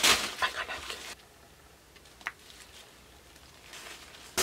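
Paper towel rustling and swishing as it is swung about, then a single click and another short burst of rustling near the end.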